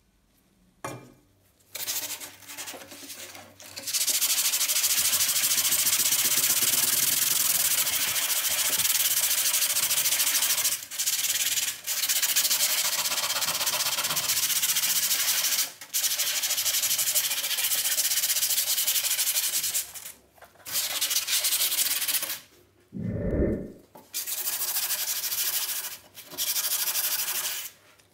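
Sandpaper rubbed by hand over a steel trowel blade: a few short scrapes, then steady continuous rubbing, broken several times by brief pauses. In one pause near the end there is a single dull low thump.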